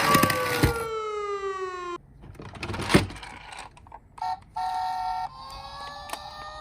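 Toy emergency-vehicle minicar's electronic siren: a wail falling in pitch that cuts off about two seconds in, then a single clack. A short steady electronic tone follows, and near the end the siren starts to rise again.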